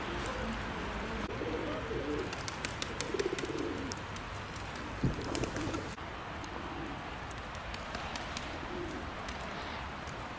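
Pigeons cooing in low, repeated phrases over a steady background hiss, with a single sharp thump about five seconds in.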